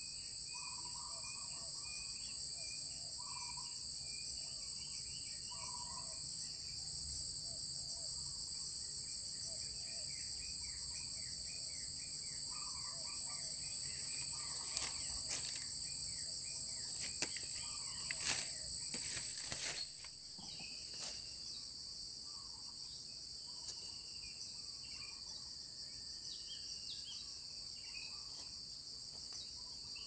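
Steady insect chorus of crickets or cicadas, a high buzzing held at several pitches, with scattered short bird chirps beneath it. A cluster of sharp clicks and rustles comes about halfway through.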